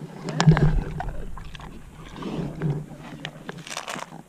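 A pig grunting low and snuffling close by, with scattered clicks and a brief low bump about half a second in.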